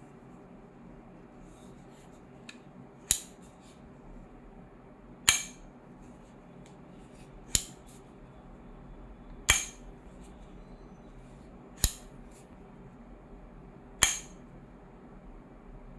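Glock pistol-shaped jet-flame gas lighter being worked, its plastic-and-metal mechanism giving six sharp clicks about two seconds apart.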